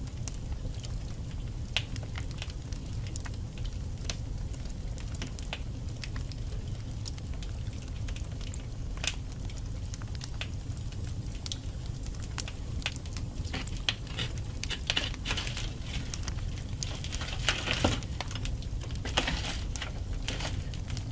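Wood fire burning in a fireplace: a steady low rumble of flames with frequent sharp crackles and pops from the logs, growing busier in the second half, with a short burst of hissing near the end.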